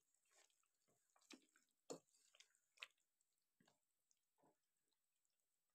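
Near silence, with a few faint wet squelches and taps as a slotted spoon stirs thick chicken curry gravy in a pot.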